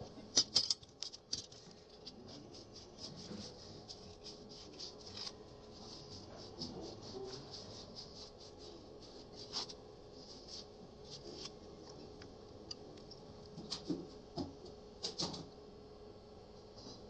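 Small parts of a mini sewing machine clicking and tapping as they are handled and fitted, in quick irregular ticks, louder in a burst near the start and again about fourteen seconds in.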